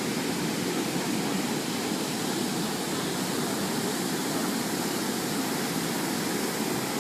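Ocean surf breaking and washing on a sandy beach: a steady, even rush.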